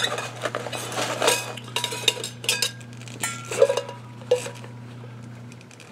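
A stainless steel camp cup clinking and knocking, with rustling, as gear is pulled out of a backpack pouch; the handling noises come thick for about four seconds, then die down, over a low steady hum.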